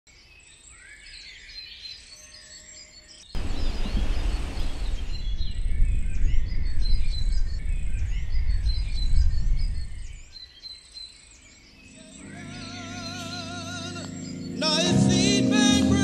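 Birds chirping and singing, cut through about three seconds in by a loud, low rushing noise that lasts to about ten seconds. Music then fades in with wavering held notes and turns loud near the end.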